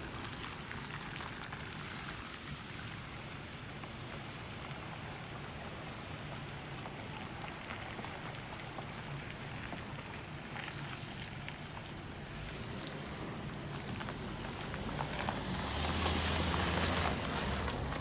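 Steady rushing, hissing noise of moving water and wind outdoors. Near the end it swells louder, with a low steady hum under it.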